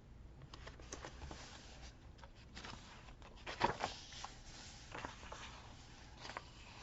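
Paper and sticker sheets being handled: rustling with light taps and clicks, loudest about three and a half seconds in.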